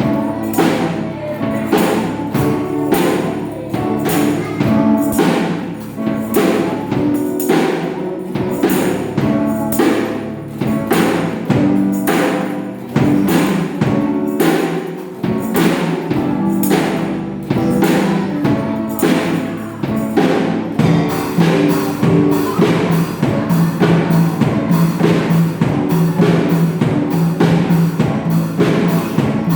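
A school pop band of guitars and drums playing a Thai pop song live, with a steady drum beat of about two strokes a second. About twenty seconds in, the drumming grows busier.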